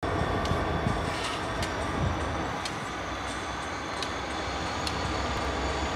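Diesel freight locomotives running: a steady low engine rumble with a thin high whine above it and a few faint clicks.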